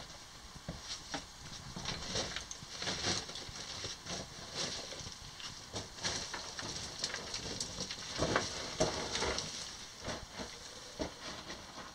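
Footsteps on the loose rock and gravel floor of a mine drift, an irregular run of crunches, scuffs and small clicks from two people walking.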